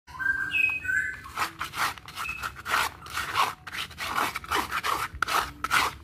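A small stiff brush scraping dried bird droppings off a cage floor tray in quick repeated strokes, about three a second, starting a little over a second in. Near the start there are a few short, clear bird chirps.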